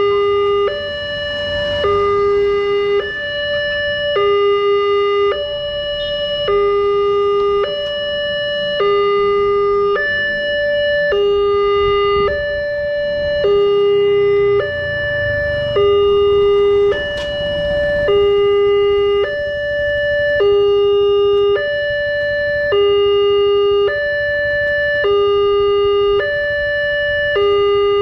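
Wantech railway level-crossing alarm sounding its two-tone electronic warning: a higher and a lower tone alternate about once a second, without a break. It is the signal that a train is approaching while the crossing barrier comes down.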